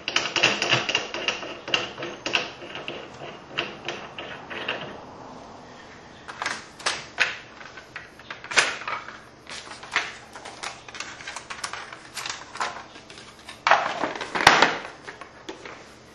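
Metal parts of a reloading press and its dies being handled as a fitting is taken out. A quick run of small clicks and rattles for the first few seconds gives way to scattered knocks, with a louder burst of clatter near the end.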